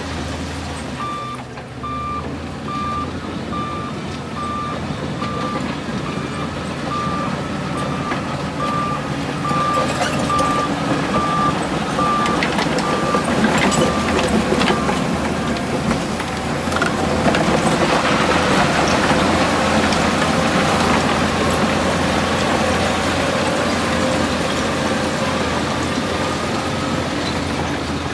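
Heavy diesel earthmoving machinery running, with a reversing alarm beeping evenly, a little more than once a second, through the first half. Afterwards the engine grows louder and works harder.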